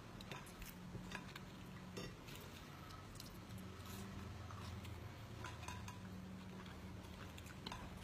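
A person chewing food, with scattered small clicks and rustles, over a low steady hum.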